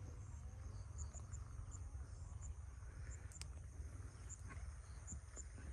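Insects chirping faintly: short, high chirps at irregular intervals over a steady low rumble, with one sharp tick about halfway through.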